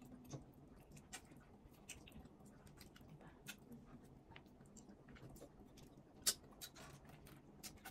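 Faint eating sounds: chewing and scattered small clicks and taps of fingers picking at food on plates, with one sharper click about six seconds in.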